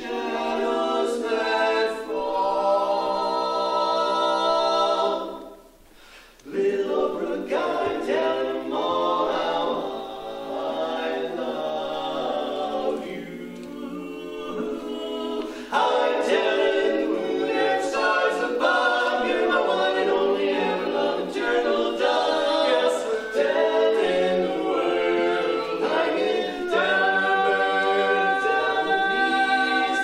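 Male barbershop quartet singing a cappella in four-part close harmony. A long held chord opens, the voices break off briefly about six seconds in, then the singing resumes and runs on through a busier passage.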